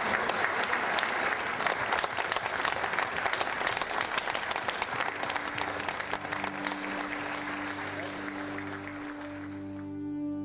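Audience applauding, the clapping thinning and fading out near the end, while soft music of long held notes comes in about halfway through.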